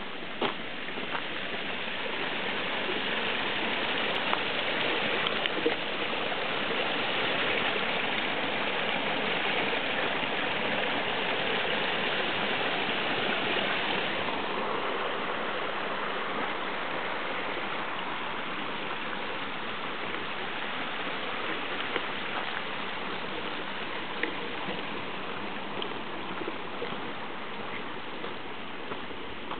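Small forest stream rushing and babbling over stones, swelling to its loudest around the middle and fading gradually through the second half.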